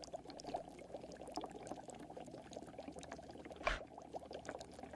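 Liquid bubbling and popping in a steaming pot, a low, steady crackle of small bubbles. A single short knock sounds about three and a half seconds in.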